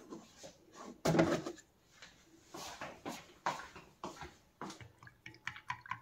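A plastic milk bottle is set down on a counter with a thump about a second in, then tea is stirred with a wooden chopstick in a glass mug: liquid swishing with light, irregular taps against the glass.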